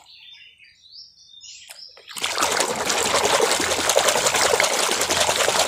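A hand swishing and scrubbing in a basin of soapy, muddy water, starting about two seconds in and running on steadily.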